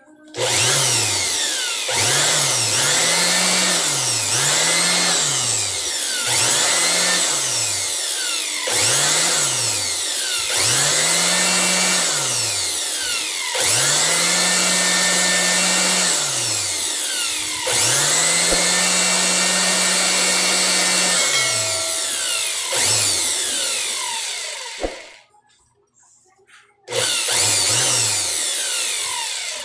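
Electric air blower's brushed motor switched on and off again and again: each time the whine rises as it spins up, holds, and falls as it winds down, the runs getting longer, then stops with one short final burst near the end. The motor runs again now that its worn carbon brushes have been dealt with.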